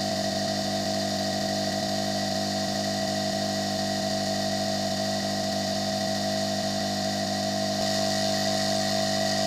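Hot air rework station blowing air from its handpiece nozzle, a steady hiss with a constant whine. It is run at its maximum setting yet fails to melt the solder of the transistor it is aimed at.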